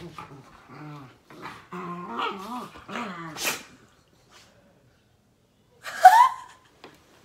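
A beagle and a chocolate Labrador scuffling with each other, with low wavering dog growls for the first three seconds or so. One sharp, loud dog yelp comes about six seconds in.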